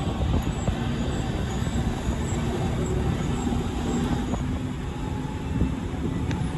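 Bus engine and road rumble heard from inside a moving bus: a steady low drone with a faint hum running through it.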